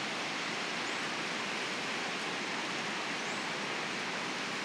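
Steady rushing of a mountain stream's flowing water, an even hiss with no change.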